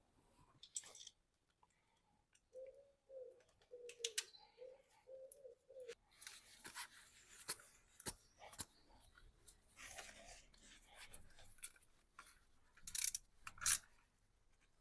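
Hand work on a car engine: small parts and tools clicking, rattling and rustling while components are fitted. There are two sharp, louder clicks near the end.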